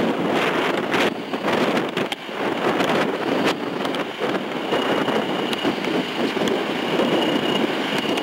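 Steady rushing roar of river rapids mixed with wind buffeting the microphone, with a faint steady high whine joining about halfway through.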